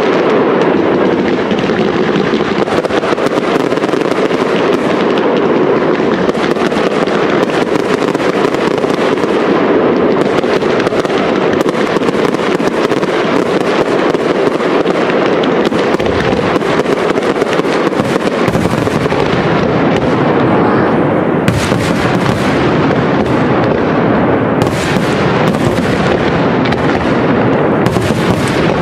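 Professional fireworks display: a dense, continuous stream of shell bursts and crackling, with a few sharper bangs standing out in the second half.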